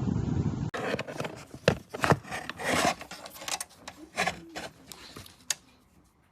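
Under a second of steady fan air noise that cuts off abruptly, then rubbing and scraping handling noises with several sharp clicks, the last click about five and a half seconds in.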